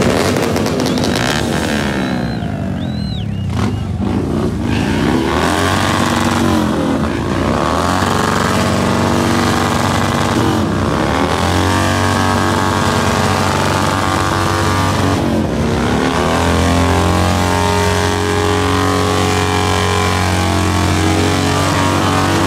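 Cruiser motorcycle doing a burnout, its rear tyre spinning on the pavement. The engine revs up and drops back several times, then is held at high revs for the last several seconds.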